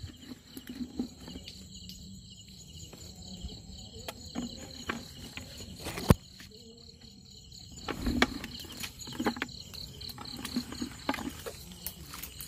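Insects chirping in a steady, rapid pulsing trill, with scattered clicks and knocks laid over it; the sharpest knock comes about six seconds in.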